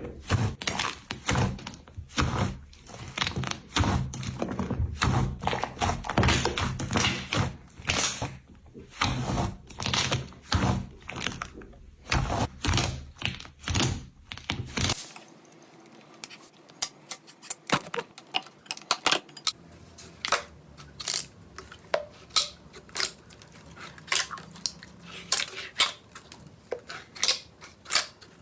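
Slime being squeezed and poked by hand close to the microphone, making rapid wet clicks and pops. About halfway through it cuts to another clip of quieter, finer crackling.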